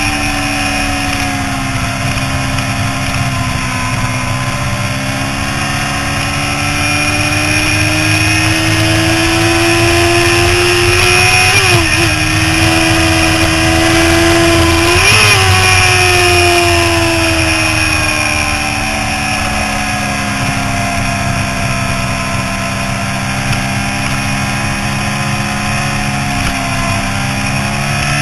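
Yamaha YZF-R6 inline-four engine pulling hard, heard from an onboard camera. Engine pitch climbs, dips briefly at a quick upshift about twelve seconds in, climbs again, then falls steadily as the throttle closes after about fifteen seconds, and starts rising again near the end.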